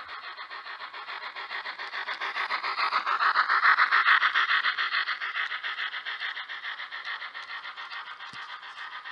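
Model steam locomotive's DCC sound decoder playing A1 'Tornado' steam exhaust chuffs through its onboard speaker, a rapid even beat of about four chuffs a second. The sound grows louder as the engine passes close, peaking about four seconds in, then fades as it moves away.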